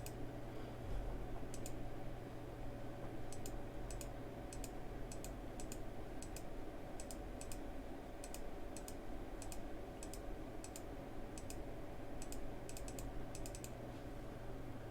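Light clicking at a computer, irregular and often in quick pairs, a few a second in spells, over a faint steady hum.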